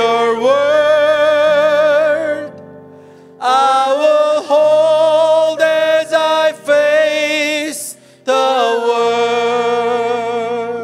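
A man sings a slow worship song solo into a microphone in three long phrases, holding notes with vibrato. Soft steady instrumental backing plays underneath.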